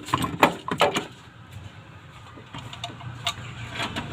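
A few sharp knocks in the first second, then a Toyota 4K four-cylinder engine idling steadily, now running on a newly fitted electronic distributor.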